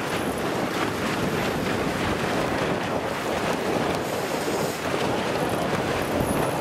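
Steady wind rushing across the microphone on open water, over the wash of choppy waves.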